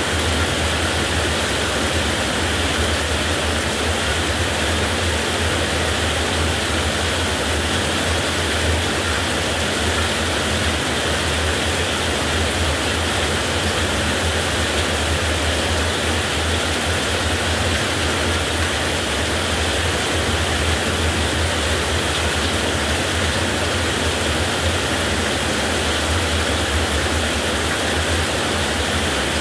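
Heavy rain falling steadily, an even hiss with no breaks or thunderclaps.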